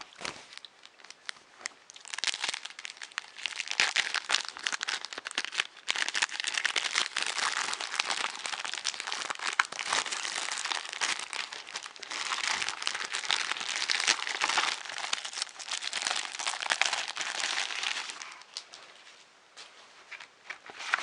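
Plastic packaging crinkling and crackling as it is handled and unwrapped by hand. It runs steadily from about two seconds in and dies away near the end.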